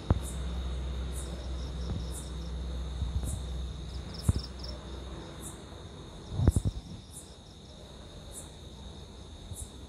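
Night insects chirping: short high chirps repeating about once a second over a steady high hum. A low rumble fades out in the first few seconds, and a few dull bumps of phone handling come through, the loudest about six and a half seconds in.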